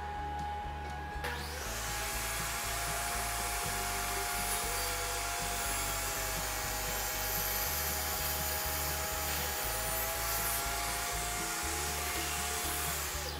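DeWalt jobsite table saw ripping a cypress board lengthwise: the blade bites about a second in, the motor's whine dips slightly under load through the cut, and the cut ends just before the close. Background music with a steady beat plays underneath.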